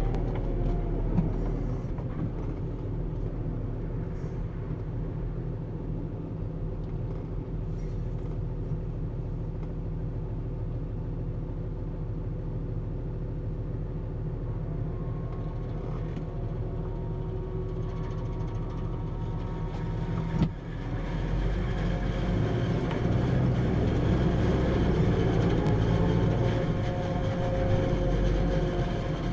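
Tractor engine running steadily, heard from inside the cab. About two-thirds of the way through there is a sharp click, after which the engine runs louder.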